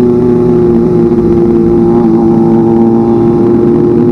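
Kawasaki ZX25R's 249 cc inline-four engine running under way at steady high revs, with a slight dip about two seconds in.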